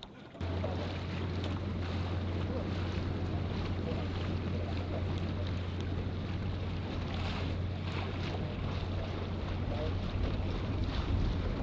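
Motor boat engine running with a steady low hum, with wind buffeting the microphone and water rushing. The sound starts abruptly about half a second in.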